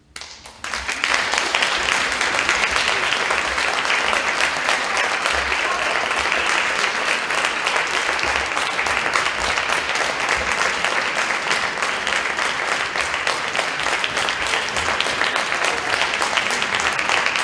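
Concert audience applauding, breaking out after a brief silence about a second in and continuing steadily.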